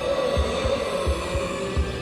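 Heartbeat sound effect: paired low lub-dub thumps, about three beats in these two seconds, over a steady eerie hum.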